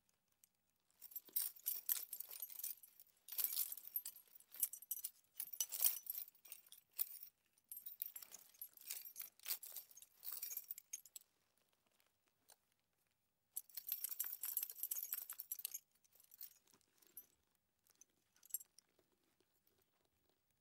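A horse's bridle metalwork (bit and buckles) jingling and clinking as the horse chews and moves its head. The clinking comes in several bursts, with a pause a little past the middle followed by one more burst, then scattered faint clicks near the end.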